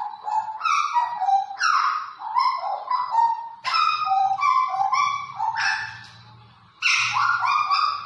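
Caged hooded butcherbird (jagal Papua) singing a run of short, rich, gurgling notes in quick phrases, pausing about six seconds in before a last phrase.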